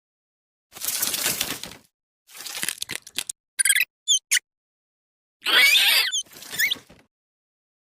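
Rat squeaking and chewing food: bursts of crackly crunching and short high squeaks, some gliding upward, coming in separate spells.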